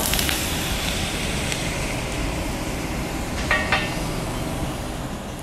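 Ice cubes clattering into a hot hand-blown glass bowl at about 900 degrees, then hissing and sizzling as they melt against the hot glass while the bowl cracks from thermal shock; a couple of short crackles come about three and a half seconds in. A steady low rumble runs underneath.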